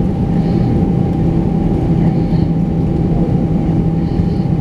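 Steady jet engine and cabin noise heard inside an Airbus A319 on the ground: an even, unbroken rumble with a constant low hum and a thin steady whine.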